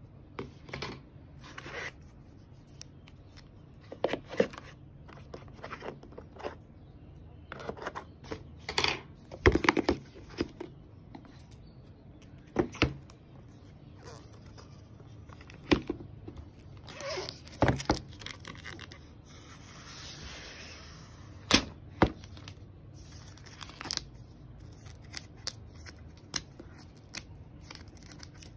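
iPad retail box and its cardboard and plastic packaging being handled: scattered taps and clicks of box parts, short rustles, and a longer rustling, tearing stretch about twenty seconds in.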